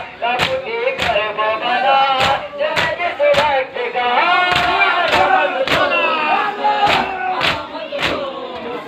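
Men chanting a nauha, a Shia lament, together with chest-beating matam: open-hand slaps on the chest land in unison about twice a second over the sung lines.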